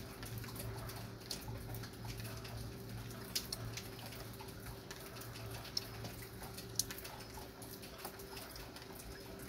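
Light rain falling, with scattered raindrops pattering and ticking irregularly and a few sharper drops standing out, over a steady low hum.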